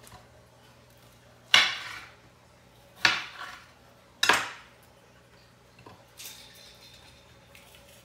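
A stainless steel bowl clanking three times as vegetables are cut into it, each sharp knock ringing briefly; softer clinks follow.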